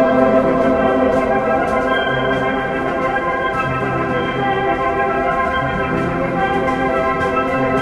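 Background music: sustained organ-like chords that shift every couple of seconds over a slowly moving bass note.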